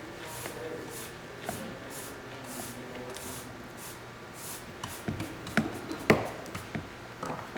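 Rhythmic rubbing strokes, about two a second, then a few sharp clicks and knocks in the last couple of seconds, the loudest about six seconds in.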